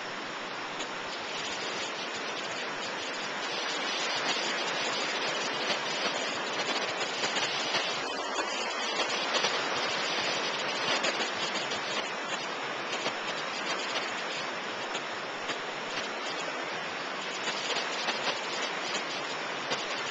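Ocean surf breaking and washing on a beach: a steady rushing noise that swells louder a few seconds in and eases again after about ten seconds.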